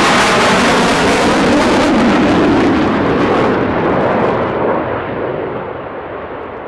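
Jet noise from a Rafale M's twin Snecma M88 turbofans running with afterburner lit during a display pass. It is loud and full at first, then from about halfway on it grows duller and a little quieter as the jet pulls away.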